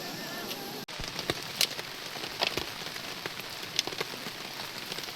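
Steady rain falling, with a handful of louder single drops ticking sharply against a nearby surface.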